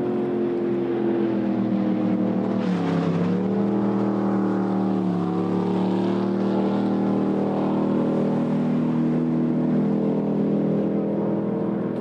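Racing jet boat engine running hard as the boat passes at speed, its pitch dipping sharply twice, about three and five seconds in, then holding steady. A brief hiss of water spray rises near the first dip.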